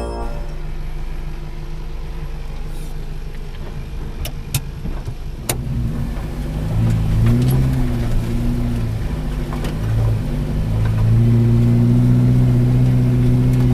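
Suzuki Jimny SJ410's small four-cylinder petrol engine running and revving under load. The revs rise about seven seconds in, drop back briefly near ten seconds, then climb and hold. A few sharp knocks come around four to five seconds in.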